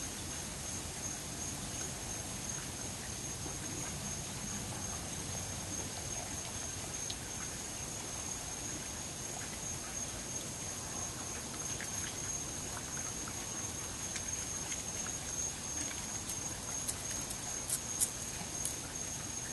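Raccoon feeding on apple pieces: soft scattered clicks and crunches of chewing and rummaging, getting busier near the end, with a sharper click as it noses around close by. A steady high insect trill, like crickets, runs underneath.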